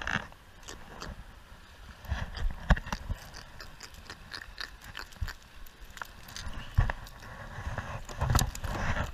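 Handling noise as a caught fish is unhooked and laid in a plastic kayak among the tackle: irregular clicks, knocks and rubbing, with a few sharper knocks.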